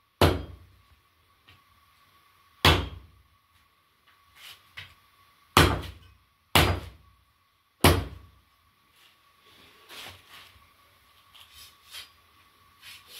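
Large butcher's knife swung like a cleaver, chopping through meat and bone onto a wooden block: five heavy chops a second or two apart, then lighter knocks and cutting over the last few seconds.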